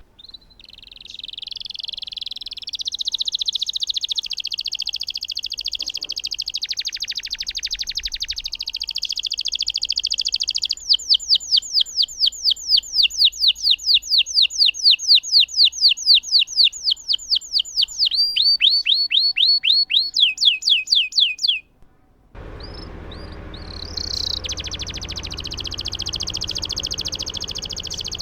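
Domestic canary singing a long rolled song. A dense high trill runs for about ten seconds, then gives way to a run of repeated falling whistled notes, about four a second. After a brief break about 22 seconds in, the rolling trill starts again over a low hiss.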